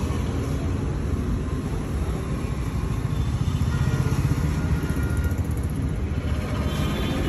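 Road traffic rumbling past, a steady low drone that swells briefly around the middle as a vehicle goes by.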